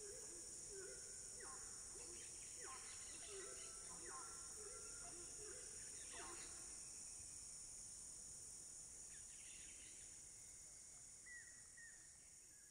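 Rainforest ambience: a steady high-pitched drone of cicadas and other insects, with repeated hooting calls of horned screamers over the first six seconds or so and a few higher bird chirps later. The whole sound fades out toward the end.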